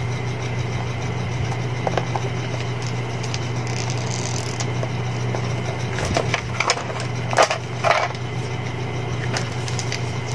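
Cardboard smartphone box and its paper packaging being handled and opened: rustling with a few sharp clicks and knocks, loudest about seven to eight seconds in, over a steady low hum.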